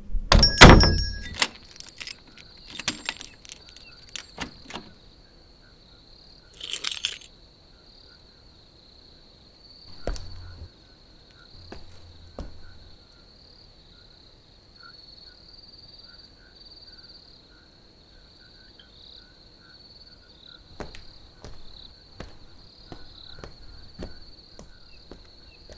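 Night ambience of a steady cricket chorus, with a loud clatter of knocks in the first second or so, a short rattle about seven seconds in and a thud about ten seconds in. Footsteps start near the end.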